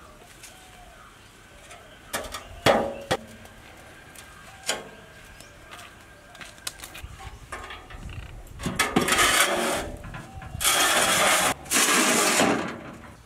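A rusty metal sheet clanking and knocking a few times as it is handled, followed by two long stretches of loud scraping, rattling noise.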